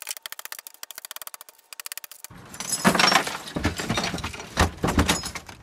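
A fast, even run of light clicks, then broken CRT television glass and parts clinking and clattering as they are shifted around inside a plastic wheelie bin, with several sharper knocks.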